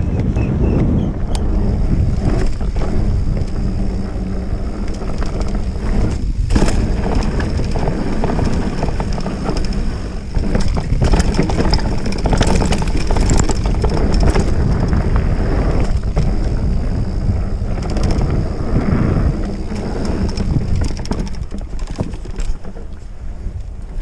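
Wind buffeting an action camera's microphone as a mountain bike rolls along a dirt trail, with knocks and rattles from the bike going over bumps. It dies down near the end.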